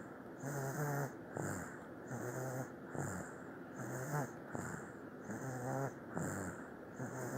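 Snoring in quick, even breaths, about one every second and a half, each cycle a low buzzy snore and a short falling, whistly note.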